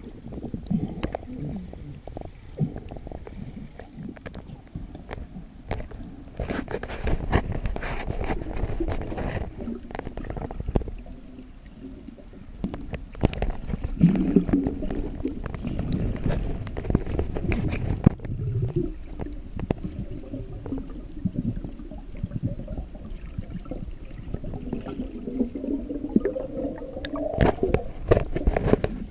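Muffled underwater sound picked up by a camera in the sea: water gurgling and bubbling, with many scattered clicks and knocks.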